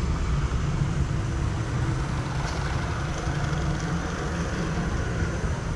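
Steady low rumble and hiss on board a rafting-ride boat drifting along its water channel, with no single distinct event.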